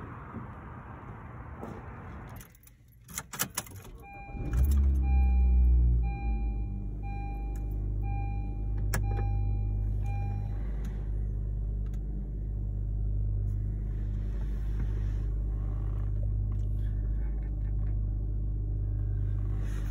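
Car engine starting a few seconds in, after a few clicks, then idling steadily. For several seconds after the start, the car's warning chime dings about once a second.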